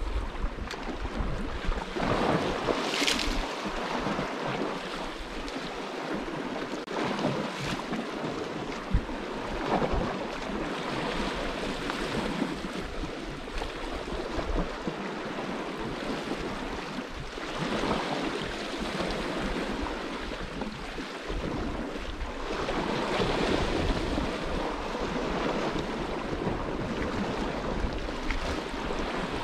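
Sea waves washing against a rocky shore, surging and easing every few seconds, with wind rumbling on the microphone.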